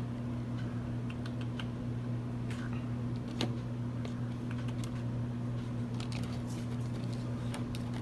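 Light, scattered clicks and taps from a hand handling thin clear plastic deli cups and paper towel, over a steady low hum.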